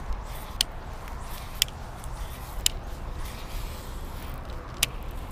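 Low rumble of wind and handling on a body-worn camera while walking a grassy bank, with four sharp clicks spread through it, about a second or two apart.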